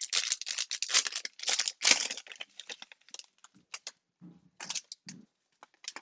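Foil wrapper of a 2020 Prizm Football hobby pack being torn open and crinkled, with dense crackling for the first two seconds, then scattered lighter rustles and clicks as the cards are handled.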